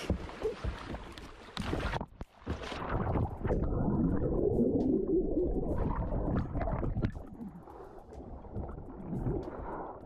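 River water splashing and gurgling as an alligator rams a kayak and the paddler is tipped into the water, starting suddenly, with the loudest churning in the middle.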